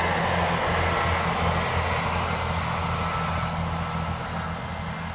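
Diesel passenger train in East Midlands Trains livery passing and moving away: a steady low engine drone under wheel and rail noise, slowly fading.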